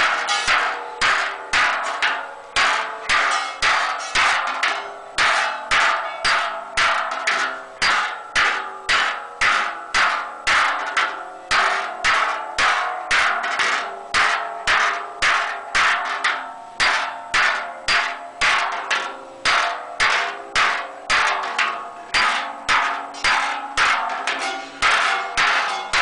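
A hand hammer strikes the inside of a large sheet-metal cauldron in steady blows, about two a second. Each blow rings briefly in the metal as the cauldron is hand-formed.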